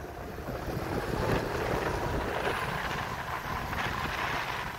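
Wind rushing over the microphone over the steady rolling noise of an Ownboard Zeus Pro electric skateboard on soft 127 mm TPU wheels, riding fast.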